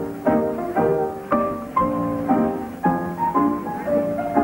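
Dance-band music with piano and strings, playing a steady beat of about two a second for couples dancing.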